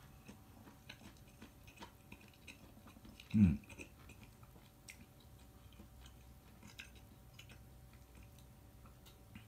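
A person faintly chewing a griddled chicken heart, a firm, crunchy-textured meat, with small clicks as it is bitten. A short hum of the voice comes about three and a half seconds in.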